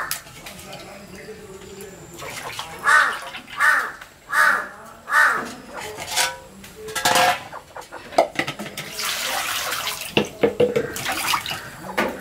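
Water splashing and sloshing as hilsa fish heads are swished and rinsed by hand in an aluminium bowl, with water poured in near the end. A crow caws four times about three to five seconds in.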